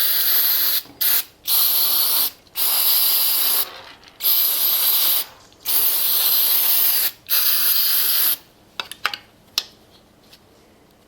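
Aerosol carb cleaner sprayed onto disassembled carburetor parts in a string of hissing bursts, each up to about a second and a half long with short breaks between. The spraying stops about eight seconds in, followed by a few light clicks.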